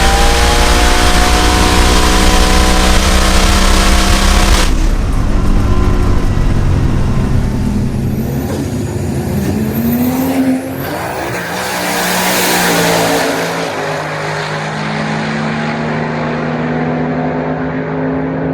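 Turbocharged 427 LSX V8 drag car running hard and loud, cut off abruptly about five seconds in. Quieter engine sound follows, with a rising pitch near the middle and a steadier note near the end.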